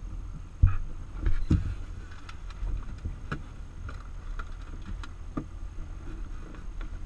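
Irregular clicks and knocks inside a closed glider cockpit, the loudest about half a second in and a few more spread over several seconds, over a low steady rumble.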